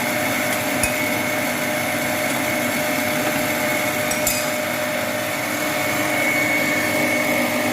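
Electric mixer running steadily, beating cake batter, with a constant motor whine. Two brief clicks sound over it, about a second in and again about four seconds in.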